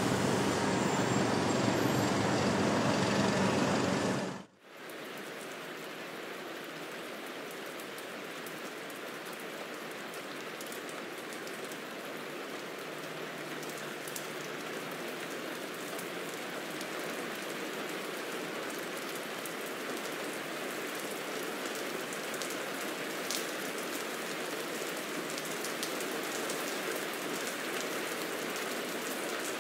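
Loud, dense noise with a low hum that cuts off abruptly about four seconds in, followed by a steady even hiss of rain that slowly grows louder, with a few faint drips or ticks.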